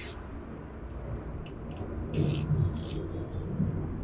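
Nylon zip ties being ratcheted tight round the bike's cables: several short zipping bursts, the longest a little past the middle, over a low steady rumble.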